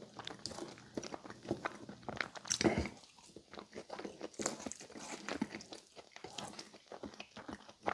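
Close-miked chewing and wet mouth smacks of a person eating soft food, mashed potatoes and stuffing in gravy, as irregular small clicks and squelches.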